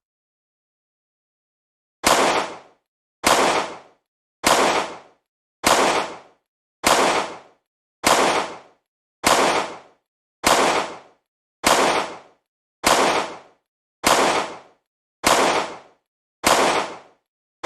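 Pistol gunshots, single shots at an even pace of about one every 1.2 seconds, each with a short ringing tail; the first comes about two seconds in.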